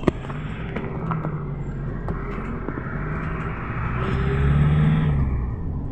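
GAZelle Next minibus engine and road noise heard from inside the passenger cabin while driving. The engine note rises to its loudest about four to five seconds in, then eases off. A sharp knock comes at the very start.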